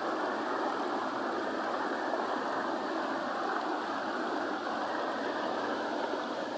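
Mountain river rushing steadily over rocks, a continuous even roar of water.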